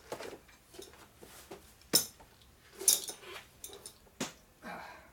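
Sharp metallic clinks and knocks of metal tools or parts being handled, the loudest about two and three seconds in and another just past four seconds.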